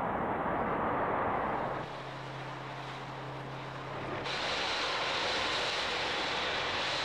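Steady roar of a large gas-fed fire burning: a continuous rushing noise with no separate bangs. From about two seconds in, a low steady hum runs beneath it, and about four seconds in the sound shifts abruptly to a brighter rush.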